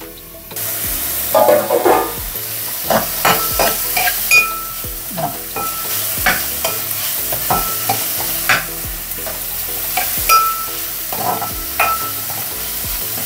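A metal spoon stirring and scraping a frying onion-tomato masala in a metal pan, with oil sizzling steadily underneath. The spoon clicks and clinks against the pan many times, some strikes ringing briefly.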